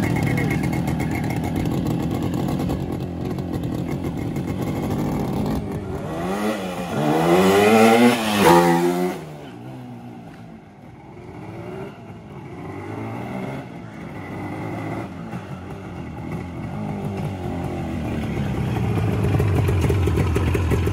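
Customized Yamaha RXG 135 two-stroke motorcycle being ridden: the engine revs up in rising sweeps that peak about eight seconds in, drops away suddenly, then builds again toward the end.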